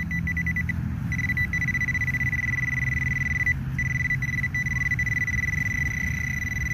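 Handheld metal-detecting pinpointer sounding a high electronic tone as it is pushed into rubber mulch. The tone stutters as rapid beeps at first and turns continuous about a second in, with one brief break past the middle: the pinpointer is right over a buried metal target. A low steady hum runs underneath.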